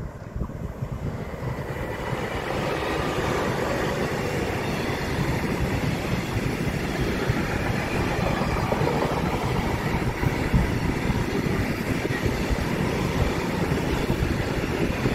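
SBB Cargo class 482 electric locomotive and its intermodal freight train running past on the main line. The rolling rumble and wheel noise build over the first couple of seconds, then hold steady.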